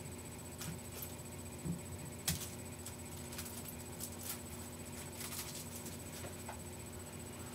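Soft scattered clicks, taps and rubbing of hands and clothing as a person signs, with one sharper tap about two seconds in, over a steady background hum.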